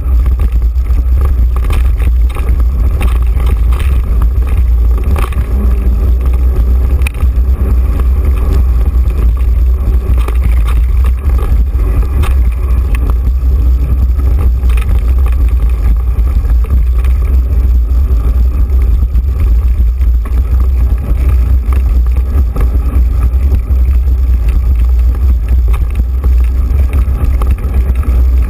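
Wind buffeting and a steady low rumble on a bike-mounted action camera's microphone while riding a mountain bike down a dirt singletrack, with frequent small knocks and rattles from the bike jolting over the rough trail.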